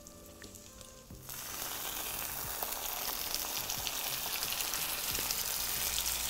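Rum poured into a hot pan of butter-sugar caramel with a crêpe in it, suddenly hissing and sizzling about a second in and going on steadily.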